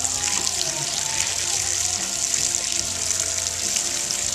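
Garden hose running steadily, its stream spraying and splashing on the water and over a drinking manatee's snout.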